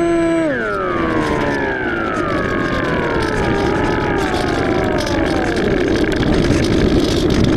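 Electric motor and propeller of an AXN Floater Jet RC foam plane: its steady whine drops sharply in pitch about half a second in, then keeps sliding lower for several seconds as the motor winds down. A rushing noise builds near the end.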